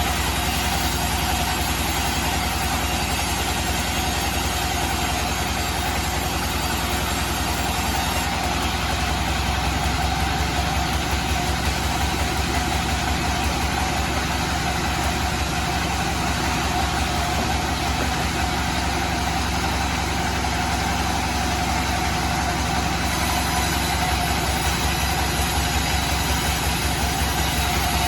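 Bandsaw sawmill running steadily: a constant machine drone with a fast low pulsing and one steady tone held above it.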